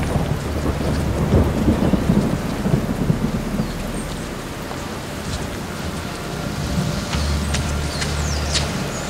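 Thunderstorm sound effect: steady rain with rolling thunder that swells about one to three seconds in. A low hum comes and goes underneath.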